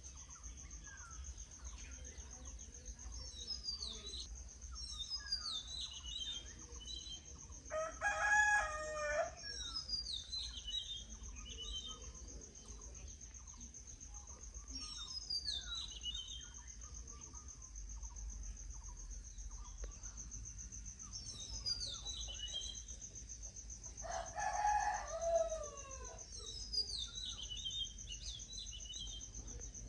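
A rooster crows twice, about eight seconds in and again some sixteen seconds later. Between the crows a small bird repeats a short, high, falling song phrase every few seconds, over a steady high-pitched insect drone.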